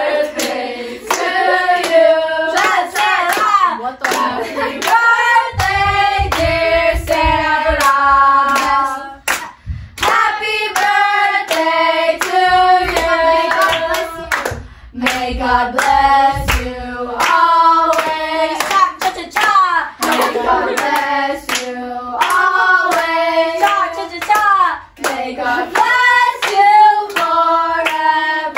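A group of girls singing a birthday song together in phrases, with hands clapping along to the beat.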